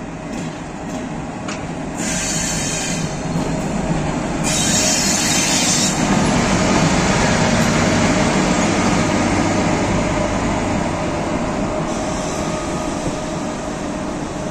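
HŽ series 1142 electric locomotive hauling passenger coaches slowly past, its wheels and running gear rumbling steadily. It grows loudest about halfway through as it passes close, then eases off, with two short bursts of high hiss about two and five seconds in.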